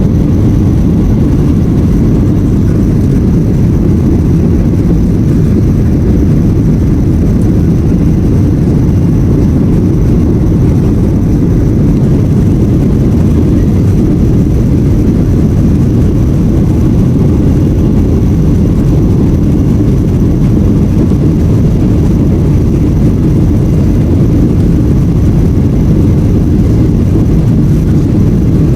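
Steady, loud low rumble of a jet airliner's engines and rushing air, unchanging throughout.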